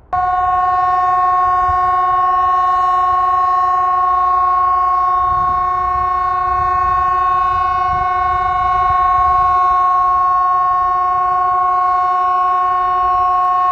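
Hesa Fredrik outdoor warning siren sounding one loud, steady tone at a constant pitch, switching on abruptly just after the start.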